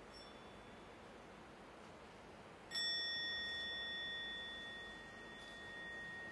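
A small bell struck once, about two and a half seconds in, ringing on with a clear high tone that slowly fades, after a faint ting at the very start. It marks the end of a one-minute silent meditation.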